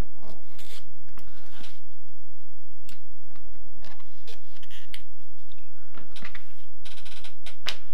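Knife blade cutting through a scrap of thin leather on a cutting mat: an irregular run of short, scratchy slicing strokes, with a cluster of sharper strokes near the end.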